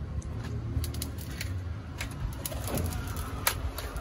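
Cabbage leaves being snapped and torn off a whole head, a few crisp cracks about a second apart over a low background rumble.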